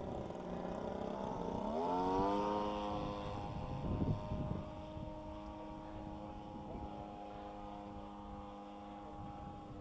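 Fuji Imvac 34cc single-cylinder two-stroke gas engine of a quarter-scale RC Piper Cub in flight, its propeller drone rising in pitch about a second and a half in, then holding a steady note as it slowly fades.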